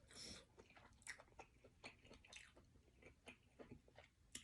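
Faint chewing and mouth smacks of a person eating, with irregular small clicks and crackles.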